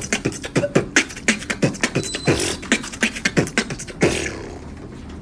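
A person beatboxing: a fast run of vocal percussion, with deep kick-drum drops and sharp hissing snare and hi-hat strokes, stopping about four seconds in.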